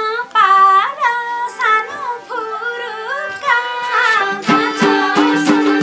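A woman sings a line of a Nepali dohori folk song, her melody sliding and ornamented, over steady held accompaniment. About four and a half seconds in, a rhythmic instrumental passage with repeated low notes takes over.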